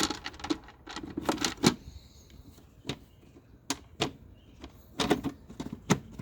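Plastic airbox cover being set back onto a car's airbox: an irregular run of sharp clicks and knocks, bunched about a second in and again near the end.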